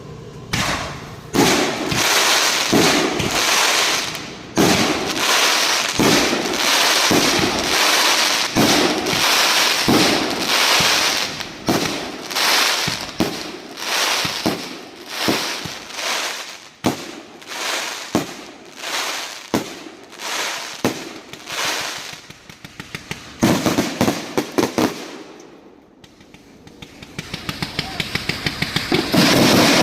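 Consumer fireworks going off in quick succession: loud bangs about once a second, each followed by crackling. Near the end a rapid string of sharp pops, several a second, grows louder.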